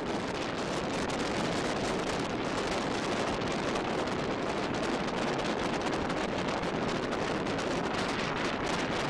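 Steady rushing wind and road noise from a moving bus, heard at its window while the bus travels at speed.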